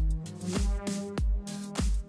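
Background electronic music with a steady kick drum beat, about one and a half beats a second, under held synth notes.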